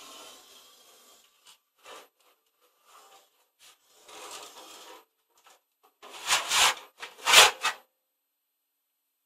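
Metal chassis of a Hameg HM303 oscilloscope being slid out of its metal case: soft rubbing and short scrapes of metal on metal, then two louder scraping knocks about six and seven seconds in.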